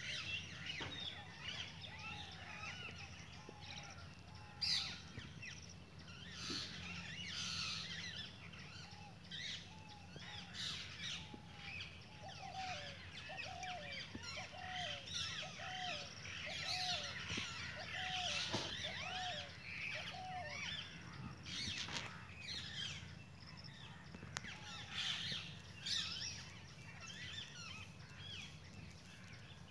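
A chorus of wild birds: many small birds chirping and twittering throughout, with a lower-pitched bird repeating a short falling call about once a second through the middle stretch.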